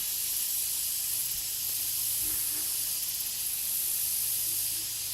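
A steady, high-pitched hiss of outdoor background noise that does not change, with no speech.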